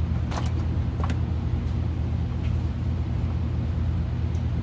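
A steady low mechanical hum, with two light clicks about a third of a second and a second in.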